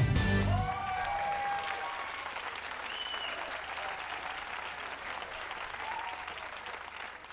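Crowd applauding, the clapping slowly fading away near the end, with a few brief raised voices in it early on; a music sting ends about half a second in.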